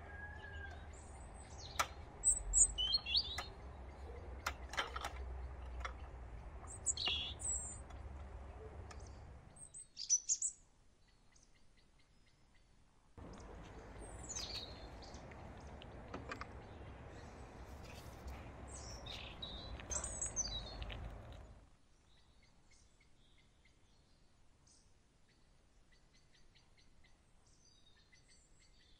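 Small birds chirping and singing over a steady outdoor background, with a few sharp clicks in the first half. The sound falls to near silence about two-thirds of the way through.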